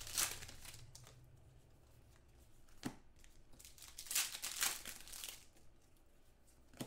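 Wrappers of 2015 Contenders football trading card packs being torn open and crinkled by hand. The rustling comes in short bursts near the start and again about four seconds in, with a sharp click near the middle.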